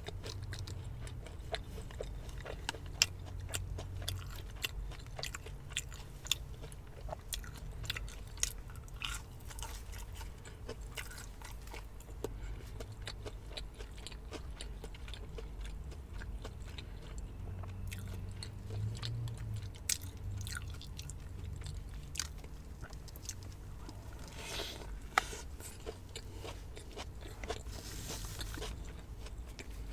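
Close-up chewing and crunching of fried fast food, with many wet mouth clicks and smacks. Near the end come two short swishing noises.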